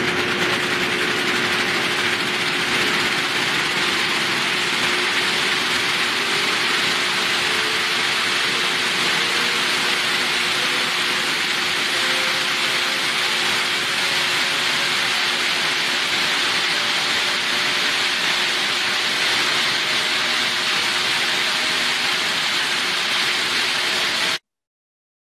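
Rotary converter, the spinning machine that converts AC to DC for traction power, running with a steady loud whir and hiss, a constant hum tone and a fainter tone slowly rising in pitch. The sound cuts off suddenly near the end.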